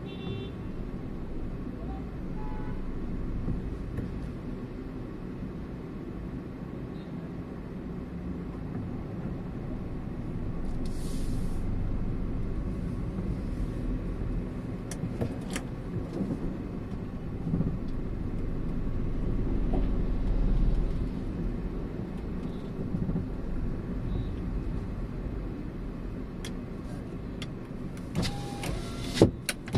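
A car on the move: steady low road and engine rumble, with a few sharp clicks and one loud knock near the end.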